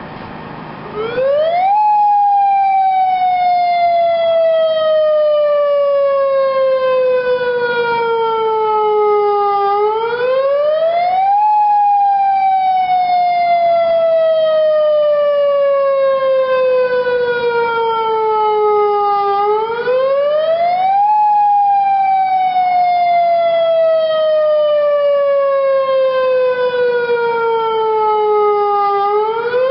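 Federal Signal Modulator 1004 tornado siren sounding a test: it starts up about a second in, then repeats a quick rise in pitch followed by a long, slow fall, about every ten seconds, three times over. Loud, with several overtones above the main tone.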